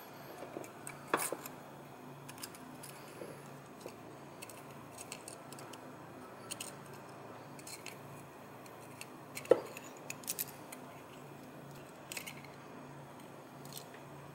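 Small metal parts of a Bendix hydroboost (spring, washer and piston) clicking and clinking as they are handled and fitted back into the housing. The taps are light and scattered; the sharpest come about a second in and again about nine and a half seconds in, over a faint low hum.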